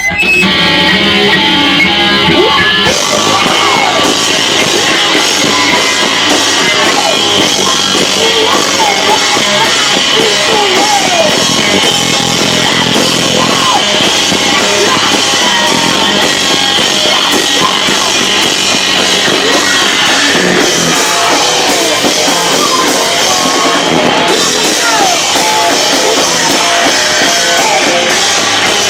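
Punk rock band playing live at full volume, with electric guitar and drum kit, loud enough to overload the camcorder microphone so the sound is distorted.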